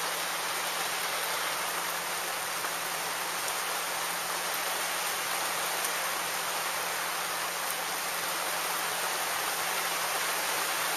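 Steady rain falling on the sea and the boat: an even hiss with faint scattered drop ticks.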